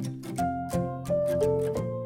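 Background music: a melody of held notes stepping up and down over a quick, light percussive beat.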